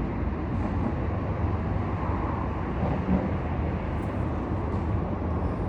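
Domestic cat purring steadily, close up, while being petted.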